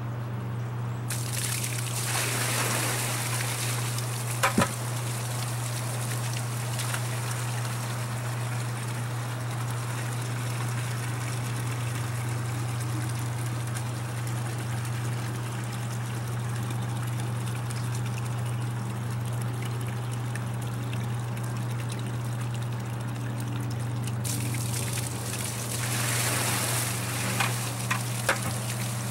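Water from a pump's discharge hose running into a plastic bucket over a steady low hum from the pump, as the pump's flow rate is measured. Near the end the full bucket is tipped out in a louder rush of pouring water.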